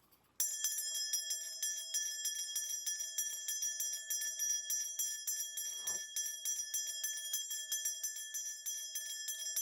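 Shaman's bell cluster (mudang bangul) shaken steadily in a spirit divination: a continuous bright jingling over a sustained ring, starting about half a second in.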